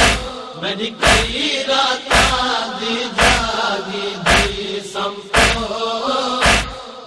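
Noha recitation between the reciter's lines: men's voices chanting a wordless refrain over a heavy matam chest-beat, one deep thump about every second.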